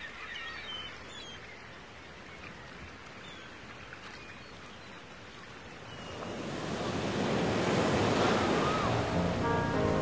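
Ocean surf washing over rocky shore, swelling into a loud breaking wave about two-thirds of the way through. A few faint bird calls are heard near the start.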